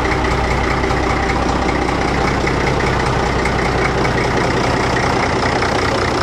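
Case tractor's big diesel engine idling steadily and evenly, a smooth-running engine that the owner takes for healthy, with good compression.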